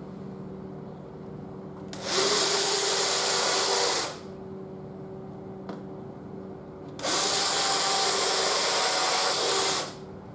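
Cordless drill boring pre-drill holes through a plywood panel into the wooden ramp beneath it. Two runs of two to three seconds each, one about two seconds in and one about seven seconds in, each starting with a short rising whine.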